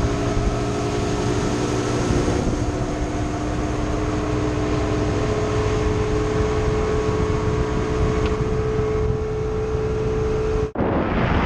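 Motorboat engine running steadily under way, a constant hum over the rush of wind and water. Near the end it cuts off abruptly and a short loud rush of noise follows.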